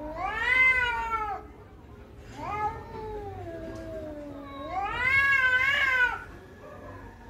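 Cats caterwauling in a territorial stand-off: three long, wavering yowls that rise and then fall in pitch, the loudest about a second in and again near the end.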